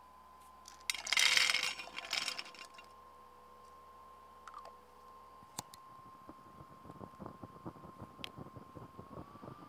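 Small fan-assisted camping stove: its electric fan whines steadily at one pitch, stepping up a little near the end. About a second in, fuel poured into the stove from a small bottle makes a loud rushing burst, and from about halfway on the burning fuel crackles irregularly.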